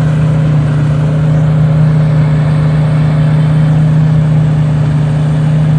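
Combine harvester running steadily at working speed as it cuts oats, a constant loud engine hum.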